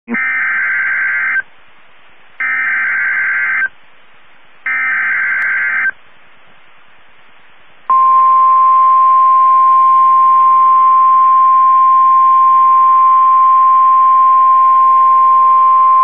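Emergency Alert System signal on NOAA Weather Radio, announcing a severe thunderstorm warning. It opens with three bursts of SAME digital header code, each a bit over a second of rapid two-tone data, about a second apart. After a short pause a steady single-pitch 1050 Hz warning alarm tone starts about eight seconds in and holds.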